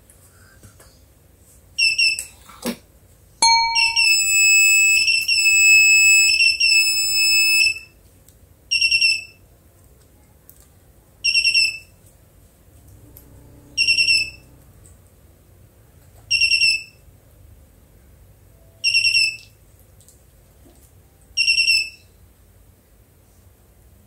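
Electronic beeper of a homemade Arduino math-practice machine: a beep about two seconds in and a sharp click, then a quick jingle of stepped tones lasting about four seconds, then single short beeps repeating about every two and a half seconds.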